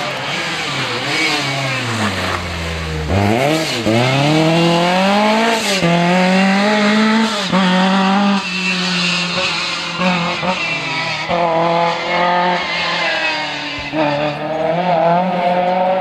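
Lancia 037 Rally's supercharged four-cylinder engine at full rally pace. The revs fall as it slows for a corner about two to three seconds in, then climb again through a string of quick gear changes as it accelerates away.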